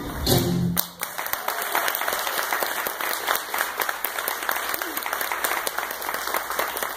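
The last chord of a stage musical number with a live audience stops about a second in, and the audience breaks into steady applause.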